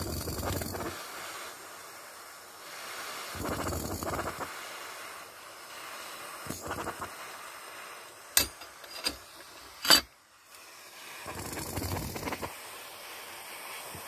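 Handheld butane jet torch burning with a steady hiss as it heats an iron ball, the noise swelling now and then. A few sharp clicks come about two-thirds of the way through.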